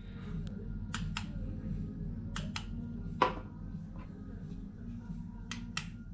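Quinetic kinetic wireless light switch pressed several times while it is paired with its receiver, giving sharp clicks, mostly in pairs about a quarter second apart, with one louder single click. A steady low hum runs underneath.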